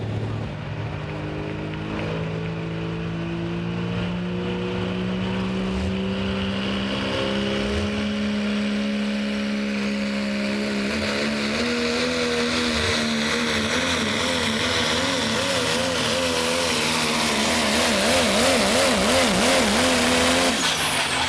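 Green Ford pickup's diesel engine pulling a weighted sled under full load. Its pitch climbs slowly at first, then wavers up and down as the truck drives down the track. Near the end the revs drop sharply as it comes off the throttle.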